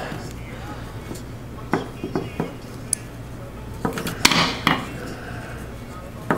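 Steel hemostat and fine stainless steel wire clicking and clinking against a dental model as the wire of an Ivy loop is twisted tight. Scattered small clicks, with a louder cluster about four seconds in.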